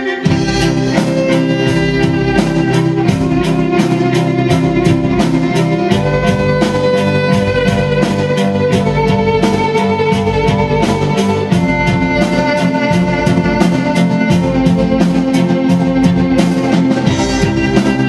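Symphony orchestra with a rock drum kit playing an orchestral rock arrangement: bowed strings carry sustained melody lines over a steady, fast drum beat, the full ensemble coming in right at the start.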